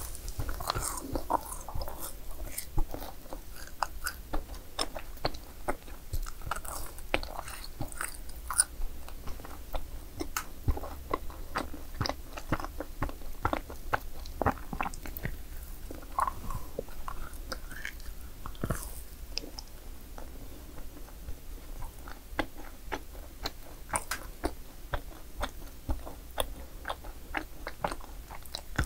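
A person biting and chewing madeleines, with many small irregular crunches and wet mouth clicks.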